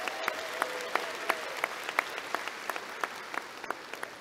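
Applause from a crowd of seated graduates, with a few sharp single claps standing out, dying down toward the end.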